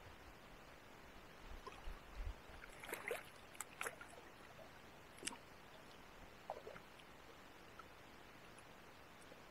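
Faint water sounds around a fishing kayak: a low steady wash with a handful of small splashes and clicks, clustered about two to four seconds in and once more a little after five seconds.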